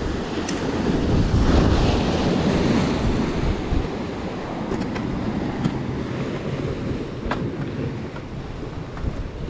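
Sea waves washing on the shore with wind buffeting the microphone, swelling about two seconds in, with a few faint clicks.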